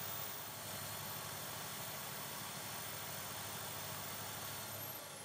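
Power tool spinning a brass wire wheel, a steady hiss with a faint motor hum as a small rusty bolt is held against it and scrubbed clean. Near the end the motor's whine falls away as the wheel spins down.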